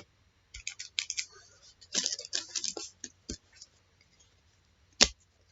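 Trading cards and their packs being handled: bursts of light clicks and rustling, then a sharp knock about five seconds in, the loudest sound.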